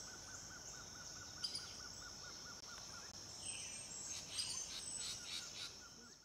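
Tropical forest ambience: a steady high insect buzz, with a rapid repeated note at about five a second that stops about halfway and returns near the end. Birds call in short notes through the second half, and the whole fades out at the end.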